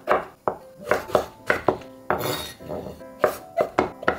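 Chef's knife slicing king oyster mushrooms into long strips on a wooden cutting board: a quick run of about ten sharp knife taps on the board, with light background music.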